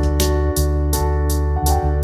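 Background music: sustained keyboard and guitar notes over a steady bass, with a regular beat of about three hits a second.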